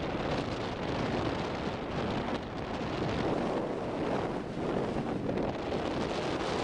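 Wind buffeting the microphone aboard a moving boat: a steady rushing noise with no distinct events.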